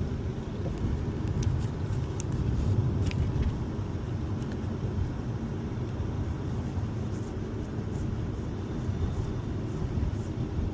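Steady low rumble of a car driving along a road: engine and tyre noise heard from inside the moving car.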